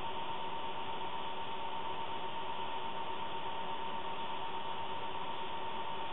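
Steady hiss with a constant high-pitched whine from running electrical equipment.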